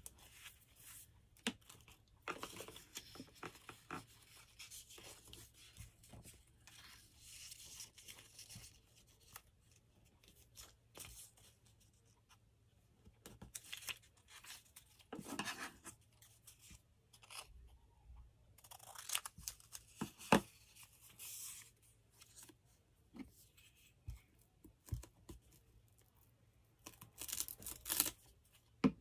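Scrap paper being handled for collage: scattered rustling and light clicks, with paper tearing, the longest tears a little past halfway and near the end.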